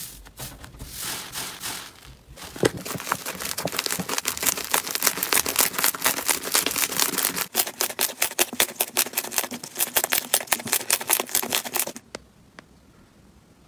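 Hands squeezing and pressing slime in a bowl: a soft squish at first, then from about two and a half seconds in a dense run of crackling pops, many a second. It stops abruptly near the end, leaving faint quiet with a single light click.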